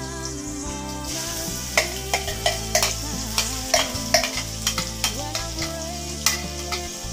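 Blended aromatic paste sizzling as it is fried in hot oil in a wok, with a metal spatula scraping it out of the bowl and stirring, giving repeated sharp knocks and scrapes against the pan.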